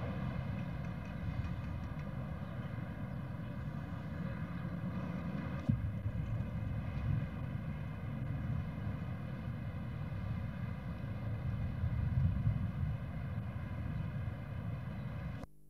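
A steady, uneven low rumble under a constant hum. One sharp click comes about six seconds in, and the sound cuts off abruptly just before the end.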